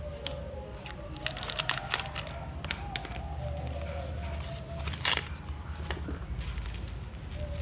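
Packaging being handled and unwrapped: plastic and cardboard crinkling, with scattered sharp clicks and crackles and one louder snap about five seconds in.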